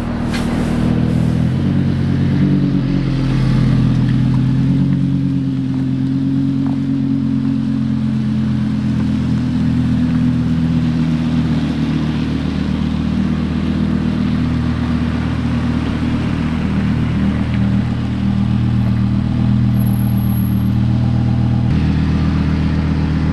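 Car driving at a steady speed: an even engine drone with road noise. The pitch shifts slightly about a second and a half in and again near the end.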